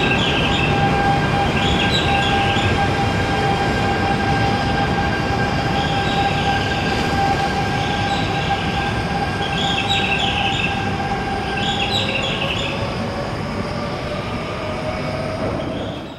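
E3-series Shinkansen electric train at the platform, slowing to a halt: a steady rumble with a high electric whine and short high squeals every second or two, then a whine that falls in pitch near the end.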